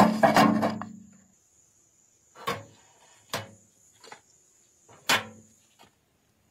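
Rusted pistol parts knocking against metal as they are handled and set down in a metal tray: a loud clank with a short ring at the start, then five or six lighter knocks about a second apart.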